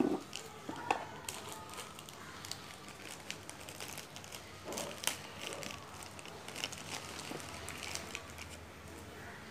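A small clear plastic packet crinkling and crackling as fingers pick it open, in irregular short crackles with a few light clicks from handling.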